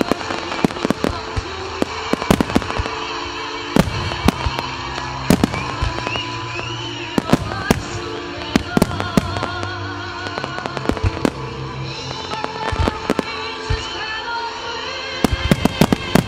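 Starmine fireworks display: shells bursting in rapid volleys near the start and again near the end, with scattered single bangs between. Music with sustained tones plays underneath throughout.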